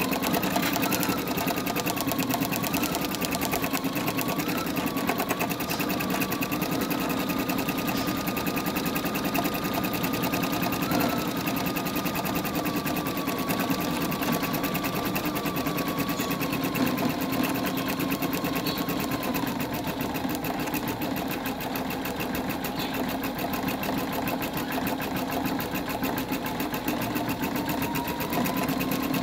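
Computerised embroidery machine stitching into a terry-towel face washer: the needle strikes in a fast, even rhythm over a steady motor whine that drifts slightly in pitch.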